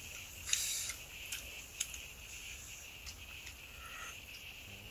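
A few small sharp clicks and a brief rustle as steamed apple snails are handled and their shells picked at by hand, over a steady high insect chirring.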